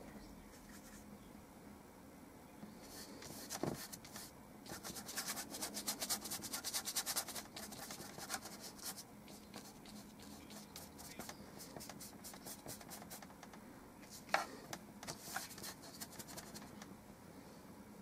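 Paintbrush scrubbing oil paint onto paper in rapid short strokes, a faint dry scratching. A long run of strokes starts about three seconds in, and a shorter one with a sharper tap comes about fourteen seconds in.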